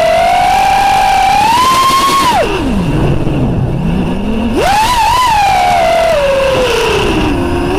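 FPV quadcopter's DYS 2206 brushless motors and propellers whining, the pitch following the throttle. The high whine drops low for about two seconds as the throttle is cut, about two and a half seconds in. It then snaps back up and slowly sinks in pitch toward the end.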